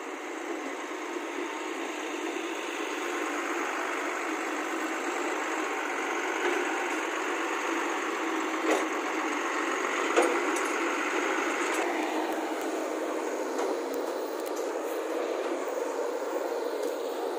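Heavy diesel engine running steadily, with a few light knocks.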